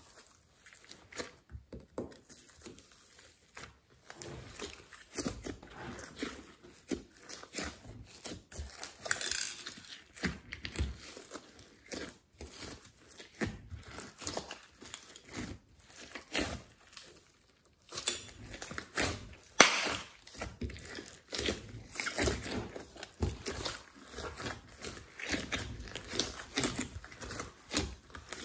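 Hands kneading and squishing a large mass of white slime mixed with glitter and beads, making short irregular clicks and squishes, with a sharper click about twenty seconds in.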